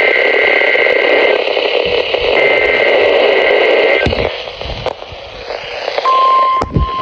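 NOAA Weather Radio receiver playing the SAME digital header of a Required Weekly Test: two long bursts of data tones about a second apart over radio static. After a short stretch of static and a couple of knocks, a steady single-pitched alert tone starts about six seconds in.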